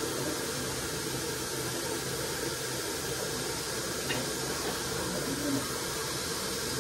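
Hand-held hair dryer blowing steadily, a constant rushing hiss with a faint motor hum.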